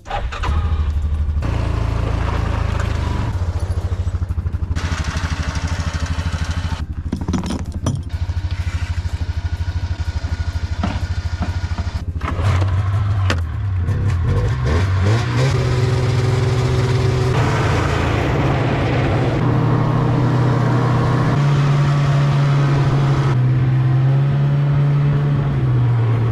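Motor vehicle engine running steadily while driving, its pitch climbing and stepping about halfway through and again near the end as it picks up speed.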